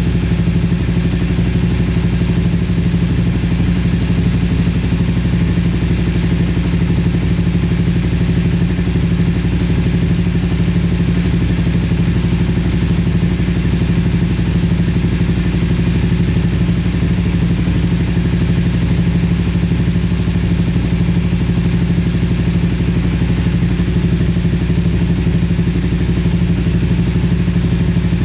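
Motorcycle engine idling steadily, a constant hum that holds the same speed throughout, running after a start on a freshly charged battery.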